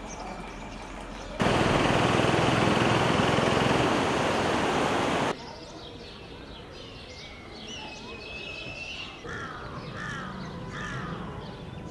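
Loud, even rushing noise for about four seconds, starting and stopping abruptly, over floodwater. Then quieter outdoor ambience with birds calling: short falling calls repeated several times near the end.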